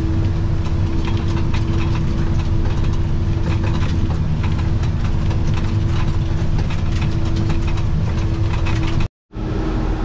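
Tractor running steadily under load with a Kuhn Knight manure spreader working behind it, spreading liquid manure, heard from inside the closed cab. There is a steady whine and a dense patter of sharp ticks over the engine rumble. The sound cuts off abruptly about nine seconds in.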